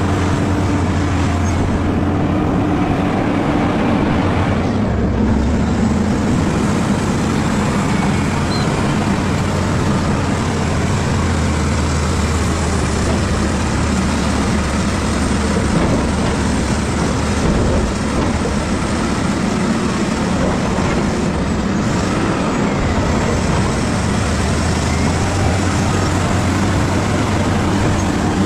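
Caterpillar bulldozer's diesel engine running steadily and loudly at working revs.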